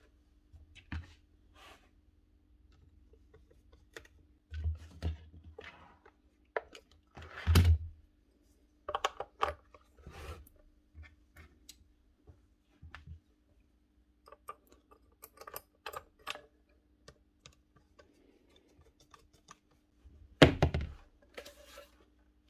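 Bosch GSH4 demolition hammer's plastic housing and small parts being handled and fitted on a workbench: scattered clicks and knocks, with louder thunks about seven and a half seconds in and again near the end.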